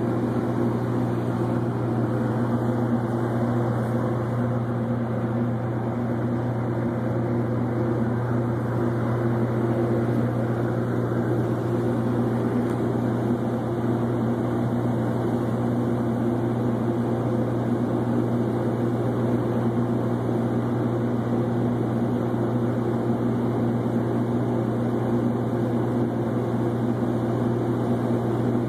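Tugboat's diesel engine running steadily under load while towing a barge: a constant low drone with several steady tones that does not change.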